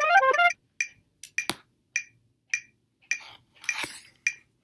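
A flute phrase breaks off about half a second in; then a metronome ticks steadily, a little under two clicks a second, with a sharper knock about a second and a half in and a brief rustle near the end.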